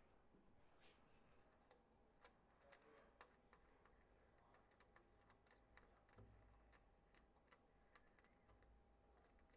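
Near silence with faint, scattered light clicks and taps of a small metal bracket and its bolt hardware being handled and fitted by hand.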